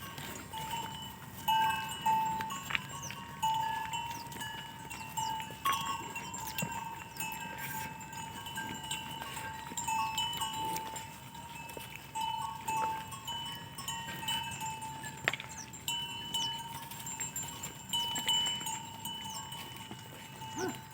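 Metal neck bells on buffalo ringing unevenly as the animals move, a few fixed bell tones struck again and again, with the occasional knock or click.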